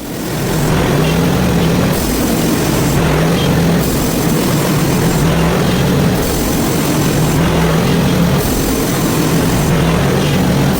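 Hud-son portable bandsaw mill running steadily under load, its engine humming and the band blade sawing through a hard maple log.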